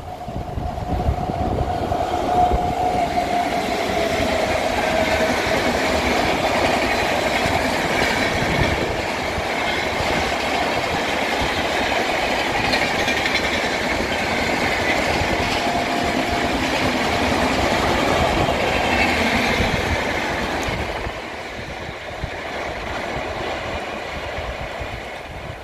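Express passenger train running past at full speed: a steady rumble and clatter of wheels on the rails. The sound drops off about 21 seconds in as the train moves away.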